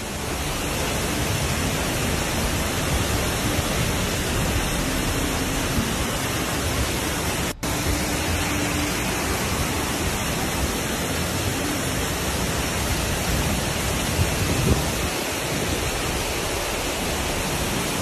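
Muddy floodwater pouring down a rocky cutting in many falls: a steady rush of water, dropping out for an instant about seven and a half seconds in.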